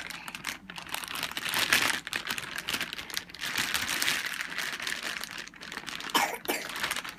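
Christmas gift wrapping paper crinkling and rustling as a present is handled and pulled at, in irregular bursts that keep going.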